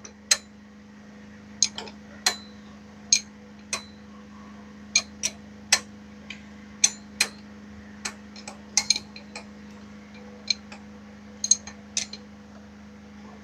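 Irregular sharp metallic clicks and clinks of hand tools working on an engine, some in quick pairs, over a steady low hum.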